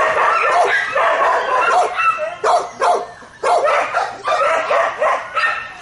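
Dog barking and yipping excitedly in a rapid, dense run of short calls, with a brief pause about three seconds in.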